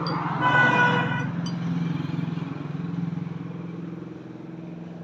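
An engine running steadily with a low pulsing hum. A short horn toot sounds about half a second in and lasts under a second.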